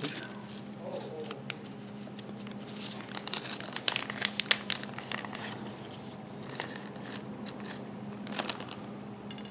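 Small plastic bag crinkling and rustling in gloved hands, in irregular crackles that are busiest about three to five seconds in and again near the end, over a steady low hum.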